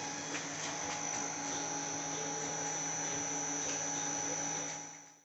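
Three-phase induction motor running from a CHINT NVF5 frequency converter: a steady hum with a thin high-pitched whine on top, typical of an inverter-fed motor. The sound fades out near the end.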